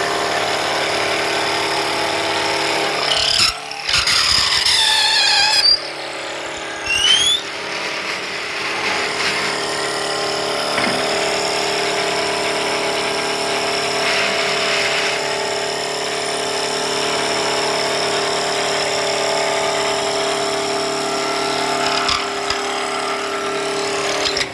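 Broom-handle making machine running with a steady motor hum. About three and a half seconds in it gets louder for a couple of seconds with a squeal that falls in pitch, and a short rising chirp follows about a second later.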